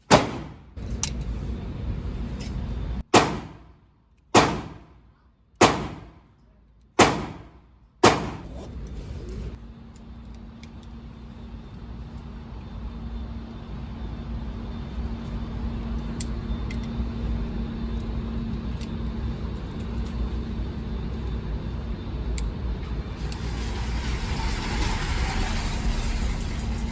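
Six shots from a Glock 43X 9mm subcompact pistol: sharp cracks, each ringing briefly, the first followed by a three-second pause and the rest about a second and a quarter apart. About ten seconds in they give way to a steady low rumble with a hum that slowly grows louder.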